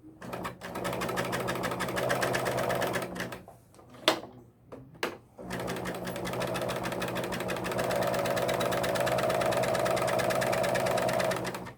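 Husqvarna Viking Huskylock 910 serger running and stitching fabric at a fast, even rhythm in two runs. It stops for about two seconds in between, with two sharp clicks, and the second run gets louder partway through.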